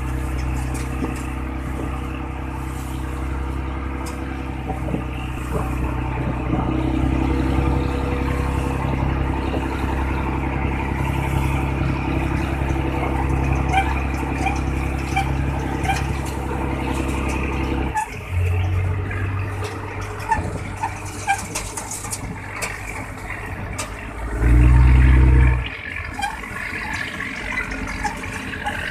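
Tugboat's marine diesel engine running with a steady low drone over churning water; about eighteen seconds in the drone drops and changes pitch. Around twenty-four seconds a loud low tone sounds for about a second, the loudest moment.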